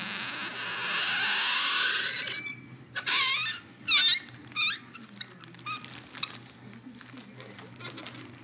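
Metal spoon pressed onto dry ice and squealing as the dry ice turns to gas against the warmer metal and sets it vibrating. A long high screech lasts about two and a half seconds, then breaks into a string of short wavering squeaks that die away about six seconds in.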